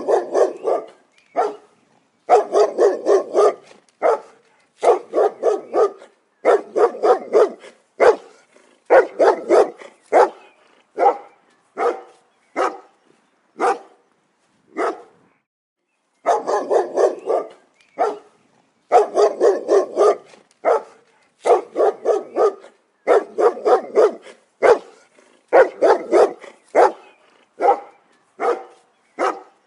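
A dog barking in quick runs of several sharp barks, with short pauses between the runs.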